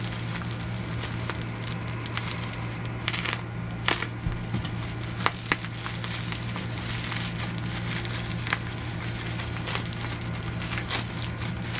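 Hands unwrapping a small item from its packaging: irregular crinkling, crackling and small clicks, with a few sharper snaps scattered through, over a steady low hum.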